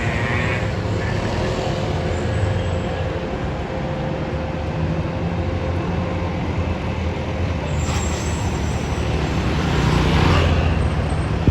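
Bus engine running close by with a steady low rumble, a short burst of hiss about eight seconds in, and the engine noise swelling near the end.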